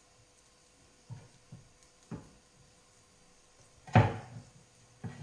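Wooden cutting board being knocked while food is cut and handled on it: a few soft knocks, then a louder, sharper wooden knock about four seconds in.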